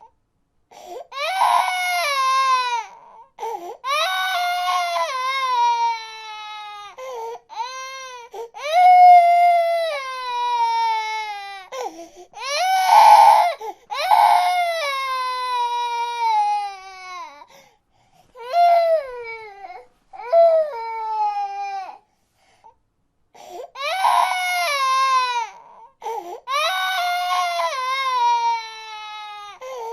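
A baby crying in a string of wails, each sliding down in pitch, broken by short gasps and a silent gap of about a second and a half about two-thirds of the way through.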